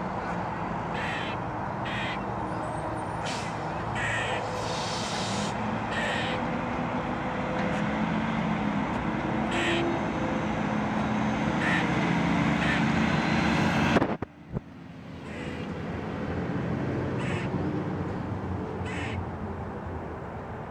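Black squirrel (melanistic eastern gray squirrel) giving repeated sharp alarm barks, about one a second, over a steady background rumble.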